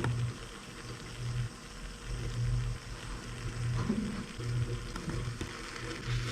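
Kamira stovetop espresso maker hissing and sputtering on the heat as the brew spurts through, now running to water at the end of extraction. A low hum comes and goes every second or so underneath.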